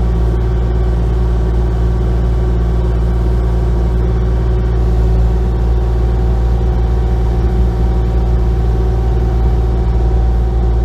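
Hydraulic excavator's diesel engine running at a steady speed.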